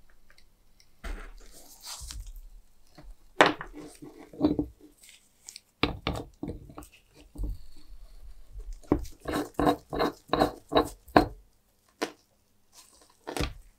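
A rusted nut being worked loose from a cast metal lamp housing with tongue-and-groove pliers: a string of short creaks, clicks and scrapes from the seized threads and the pliers' jaws. About nine seconds in comes a quicker run of about nine of these sounds as the nut gives.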